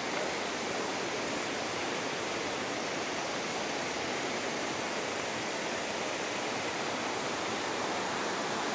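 Steady rushing of the fast-flowing Soča river, an even, unbroken sound of churning water.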